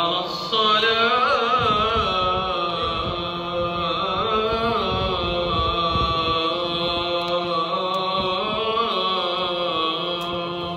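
A man's voice chanting Islamic prayer over the Grand Mosque's loudspeakers: one long, ornamented, melodic phrase with held notes, fading out near the end.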